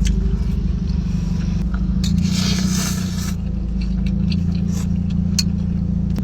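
Steady low hum of a car engine running, heard from inside the car, with a scraping rustle lasting about a second, about two seconds in.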